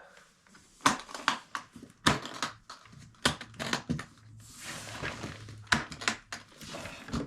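Guitar case being opened: a series of sharp clicks and snaps at irregular intervals, as of latches being flipped and the lid handled, with a brief rustle midway.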